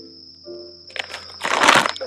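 Plastic snack packet crinkling loudly as it is handled and opened, with a cricket chirring steadily on one high note.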